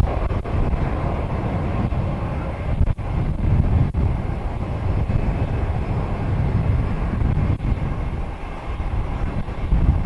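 Wind buffeting the microphone over a steady rumble of jet aircraft engines, the level rising and falling with the gusts.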